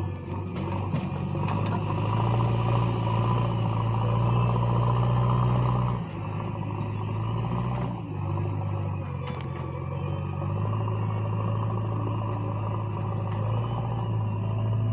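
JCB backhoe loader's diesel engine running under heavy load as the machine climbs a steep dirt slope, its note dropping briefly twice, about six and eight seconds in, then pulling steadily again.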